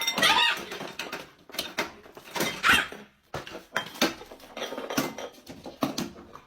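Cats squaring off: scattered scuffs and knocks with a few short, high, squeaky cries, the loudest near the start.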